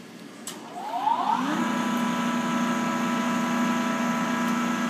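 Cazeneuve HB725 engine lathe starting up: the motor and spindle drive whine up in pitch for about a second, then settle into a steady running hum with several steady tones.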